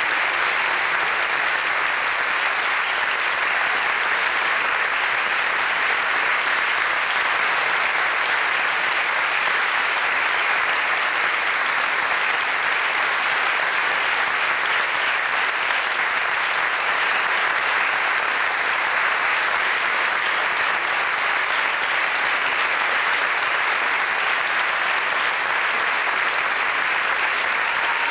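Theatre audience giving steady, unbroken curtain-call applause, many hands clapping at once.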